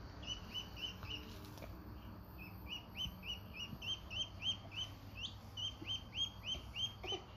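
Duckling peeping: a steady run of short, high chirps, about three a second, with a brief pause about a second and a half in.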